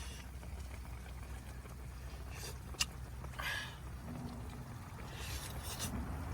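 A steady low rumble with a few short rustles and a sharp click near the middle, as someone eats lamb spine stew from a pot with chopsticks.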